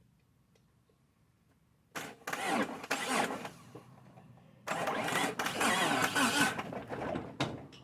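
A Mitsubishi Eclipse's starter motor cranking in two bursts, about two and three seconds long, starting about two seconds in. The car is in gear with the engine not firing, so the starter labours as it drags the car along, jumped with a screwdriver because the key switch is dead.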